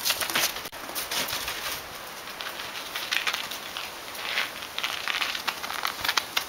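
A dog's paws scrabbling and scuffing on a wooden deck dusted with snow and dry leaves: irregular quick scrapes and taps.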